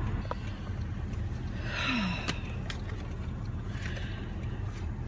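Low, steady rumble of a car cabin with the car stopped in traffic. A few faint clicks and soft breathy hisses come partway through as the phone is turned around.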